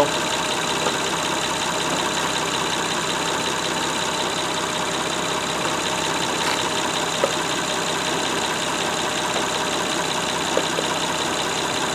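Honda Odyssey's 3.5-litre V6 idling steadily, with a few faint clicks as the plastic coolant burp funnel is handled.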